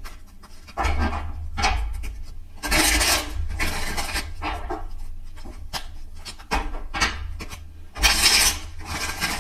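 A deck of tarot cards being shuffled by hand: rustling, riffling bursts with small card clicks between them, loudest about three seconds in and again near the end.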